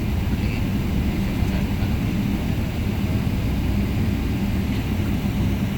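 Steady low rumble with a constant hum inside an airliner cabin as the jet taxis after landing.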